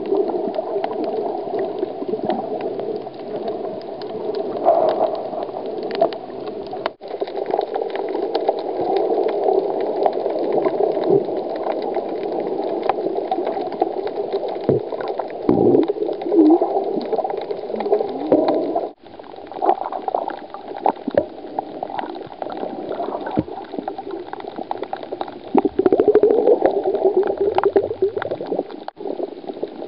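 Muffled, bubbling underwater water noise picked up by a camera filming beneath the surface, with scattered sharp clicks. It breaks off briefly three times as the shots change.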